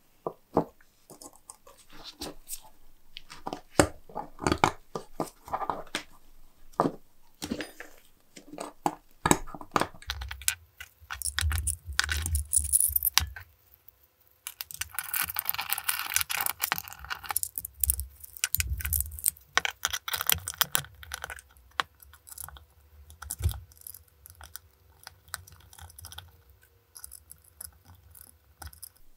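Small metal lock parts clicking and clinking against each other and the metal lock case as an antique door lock is reassembled by hand, with dull knocks on the workbench. A few seconds of steady rasping noise come about halfway through.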